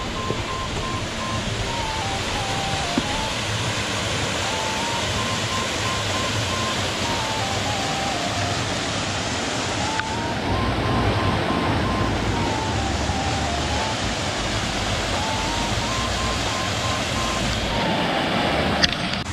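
Steady rushing water, with background music over it: a simple stepped tune that repeats about every ten seconds.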